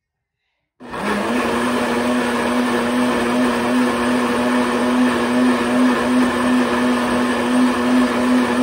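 Ninja high-powered countertop blender running at full speed, pureeing chopped celery with no water added: a steady motor hum with a dense whirring grind. It starts suddenly about a second in and holds steady.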